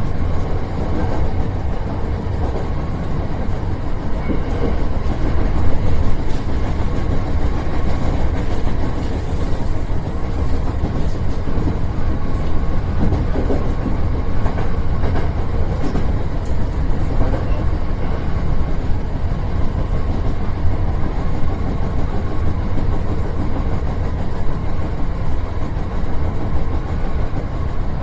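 Hankyu electric train running, heard from inside the front car: a steady rumble of wheels on rail with a few clacks over the rail joints.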